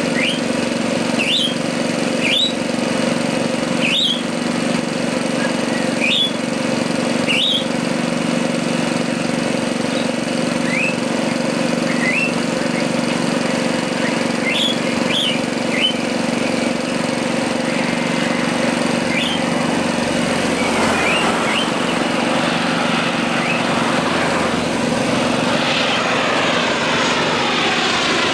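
A Boeing 737-300 on final approach, its CFM56 turbofans growing louder from about twenty seconds in and sweeping overhead at the end with a rushing, phasing jet roar. Under it runs a steady low engine hum, and short rising bird chirps come every second or two in the first half.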